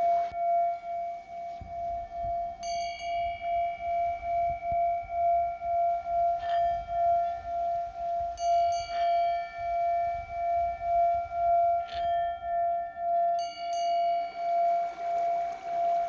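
Himalayan singing bowls: one bowl sings a steady ringing tone that pulses about twice a second, while bowls are struck about five times, each strike ringing out in higher, overlapping tones.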